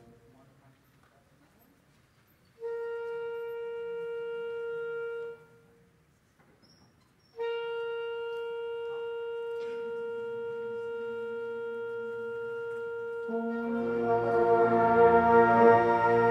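School concert band music. After a brief hush, a lone wind instrument holds a long note twice, a second instrument joins an octave lower, and then the full band comes in and swells.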